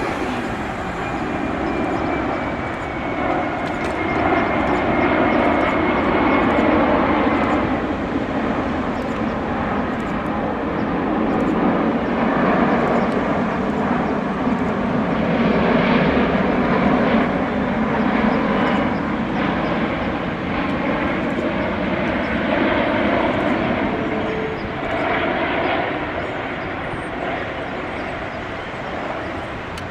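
Jet engines of an Airbus A380 on landing approach: a loud, steady rushing roar, with a faint high whine that falls slightly in pitch over the first several seconds.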